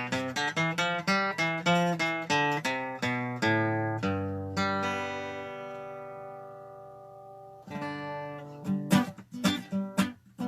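Acoustic guitar played solo. Quick single notes are picked for the first few seconds, then a chord is left to ring and fade for about three seconds. Near the end it moves into fast, sharp strumming.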